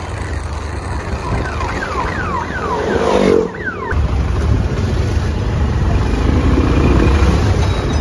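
Motorcycle engine and wind rumble while riding through city traffic. From about one and a half to four seconds in, a string of short falling tones sounds over it.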